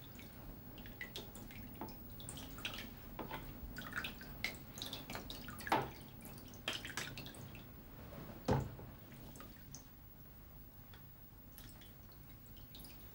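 Goat's-milk curd being ladled by hand into small perforated cheese moulds: wet dripping and splashing of curd and whey, with small knocks of the ladle. Two louder knocks come about six and eight and a half seconds in, and it grows quieter in the last few seconds.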